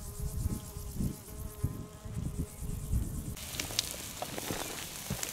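A flying insect buzzing steadily over a low, gusty rumble. About three seconds in, the sound switches abruptly to a wood fire crackling under a hiss, with steaks cooking on a stone slab over it.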